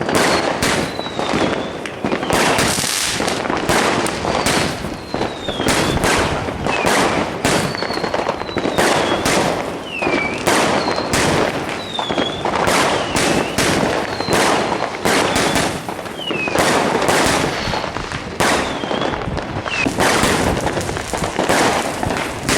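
Fireworks going off in a dense, continuous run of bangs and crackles, with short falling whistles every second or two.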